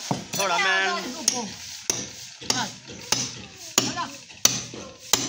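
Hammer striking an upright piece of steel rebar, about seven sharp metallic knocks at an even pace of roughly one every two-thirds of a second, after a brief wavering sound in the first second.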